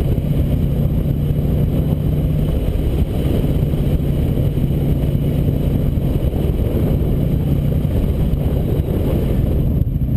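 Harley-Davidson V-twin engine running steadily as the motorcycle is ridden, with a constant low hum under a heavy rumble of wind on the helmet-mounted microphone.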